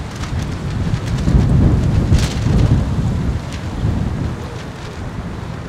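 Wind buffeting the camera microphone: a low rumble that swells about a second in and eases after about three seconds.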